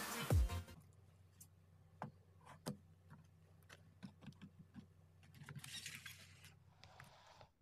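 Faint taps and knocks of instant noodle cups and a cardboard box being set down and moved on a wooden table, with soft paper rustling about six seconds in. Electronic music cuts off in the first half second.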